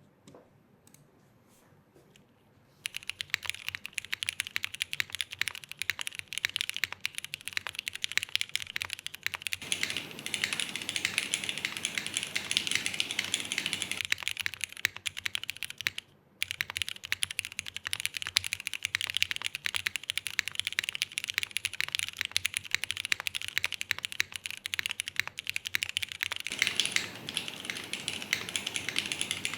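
Cycle 7 gasket-mounted mechanical keyboard with a polycarbonate plate, modded Cherry New Nixie switches and GMK Tako keycaps, typed on steadily in fast, continuous keystrokes. The typing starts about three seconds in and breaks off briefly a little past the middle.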